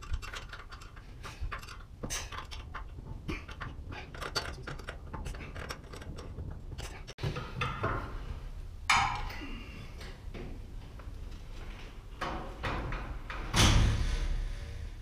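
Metal clicks and clinks of steel winding bars working against a garage door torsion spring's winding cone, with a louder clunk near the end as a bar is handled.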